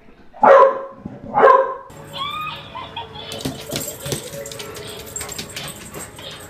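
A dog barks twice, loudly, about a second apart. Then a quieter jumble of clicks and faint short sounds follows.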